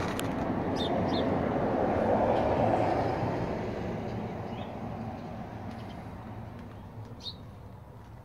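Traffic noise from a vehicle passing by: a rushing rumble that swells about two seconds in, then fades away.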